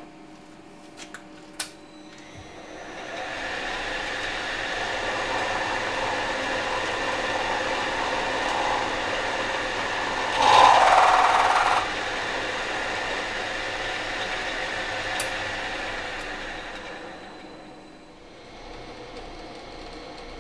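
Milling machine running, its end mill side-milling the steel shank of a drill bit. A few light clicks, then the machine comes up to a steady whine of several tones about two seconds in. The cutting grows louder for about a second and a half near the middle, and the sound dies away a few seconds before the end.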